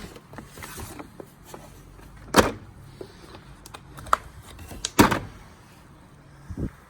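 A Torx bit socket set and its plastic case being handled: scattered light clicks and rattles, with two sharper knocks about two and a half seconds apart.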